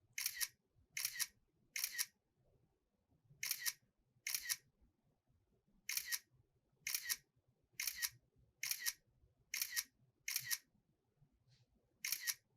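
Camera shutter sound from a stop-motion animation app, played each time a frame is taken. About a dozen short shutter clicks, mostly about one a second, with a few longer pauses between them.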